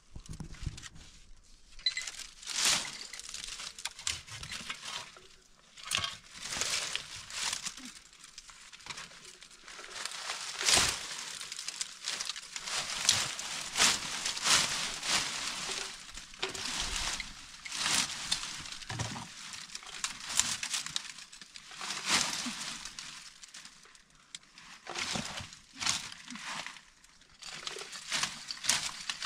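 Irregular rustling and crinkling, many short noisy strokes in quick succession.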